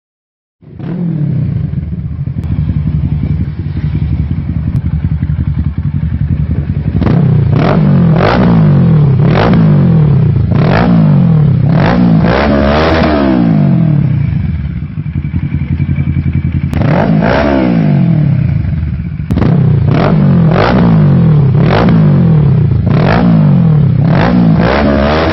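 Kawasaki Versys 650's parallel-twin engine through a Mivv Oval Titanium exhaust, starting at idle and then revved in a series of quick throttle blips that rise and fall back to idle. It settles at idle for a few seconds midway before more blips follow.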